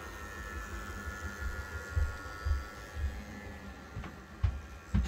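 HO-scale model diesel locomotive's small electric motor and gears whining steadily as it runs along the layout. Several low thumps come in from about a second and a half in, with a few sharp clicks near the end.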